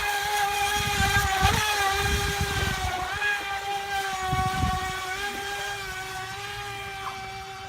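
FT012 remote-control speed boat's electric motor running with a steady high-pitched whine over a low, uneven rumble, growing fainter in the last few seconds.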